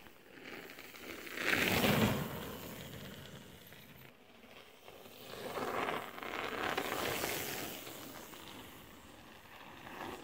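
Mountain bike tyres crunching over a gravel-dirt trail as a rider carves through a berm, passing close by twice. Each pass is a rising and fading rush of noise, the louder about two seconds in.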